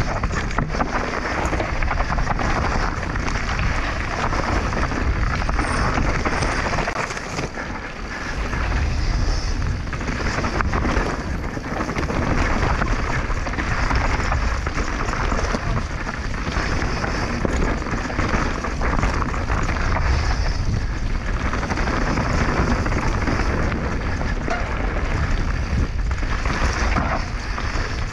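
Mountain bike descending a dirt and gravel trail: wind buffeting the camera microphone over the steady crunch and rattle of tyres and bike, with a short lull about eight seconds in.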